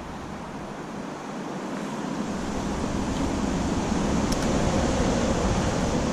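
Wind rushing across the microphone, building over the first few seconds, with a faint click about four seconds in.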